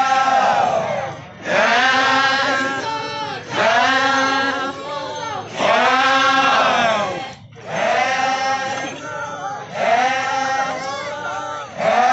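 Group of folk dancers chanting a traditional Naga dance song in unison. About six repeated phrases, each about two seconds long, rise and fall in pitch, with short breaths between them.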